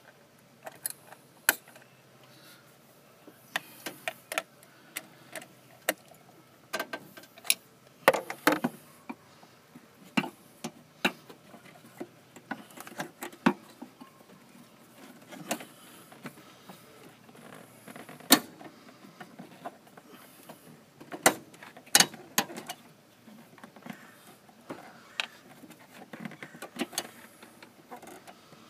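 Scattered sharp clicks and taps from a socket ratchet with an extension and from hard plastic parts being worked by hand, irregular and uneven in loudness.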